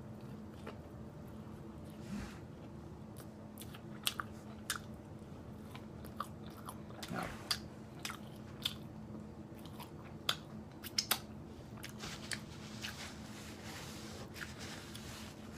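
Close-miked eating: a woman biting and chewing fried food, with irregular crunches and sharp wet mouth clicks over a steady low hum.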